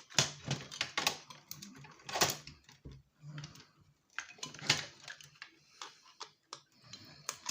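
Irregular clicks and knocks of hands and tools working on the wiring and parts of an old electronic unit as it is stripped for scrap, a few sharp clacks among quieter rustling and scraping.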